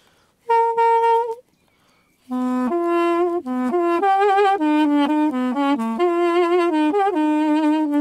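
Newly carved apricot-wood mey, a Turkish double-reed pipe, being tried out. It plays one held note, then after a short pause a slow melody of stepped notes with some vibrato.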